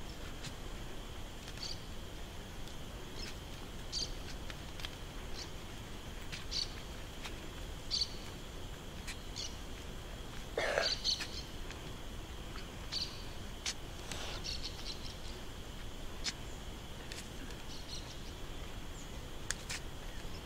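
Steady high-pitched insect drone with short bird chirps scattered every second or so, and one louder call about halfway through.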